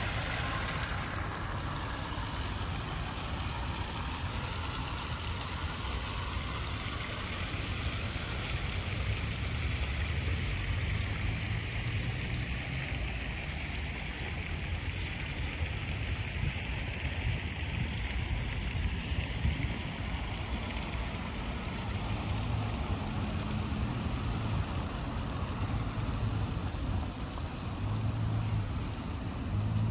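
Steady outdoor street ambience: an even wash of noise over a low rumble, with no distinct events standing out.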